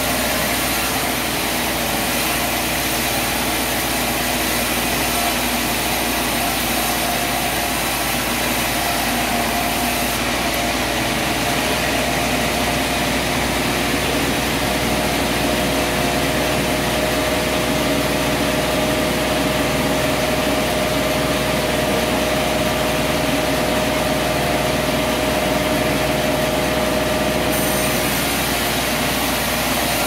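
Sawmill's saw machine running steadily, a constant mechanical drone with steady tones over a noisy hiss, while a timber plank is fed along its carriage table.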